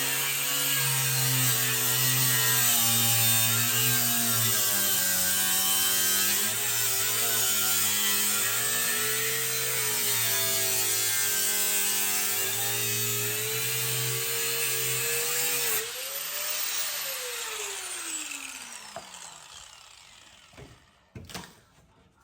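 Electric saw cutting through a door for a doggie-door opening, its motor whine dipping and rising with the load. About sixteen seconds in it switches off and winds down, followed by a couple of knocks.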